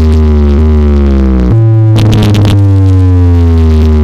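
Electronic DJ bass track blasting from a giant stack of DJ box speakers at very high volume: deep, constant bass under a synth tone that slides slowly downward and restarts, with a brief noisy burst about two seconds in.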